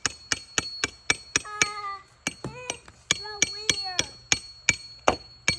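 Hammer striking a half-inch steel rebar stake in rapid, even blows, about four a second with brief pauses, driving it down through a concrete corner block into the ground.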